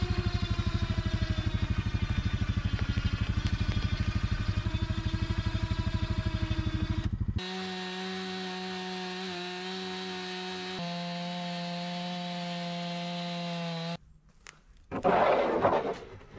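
An ATV engine runs with a throbbing beat for about seven seconds. It cuts to a Stihl MS 261 chainsaw running steadily through a log in a chainsaw mill, which stops about fourteen seconds in. A brief clatter of boards being handled follows near the end.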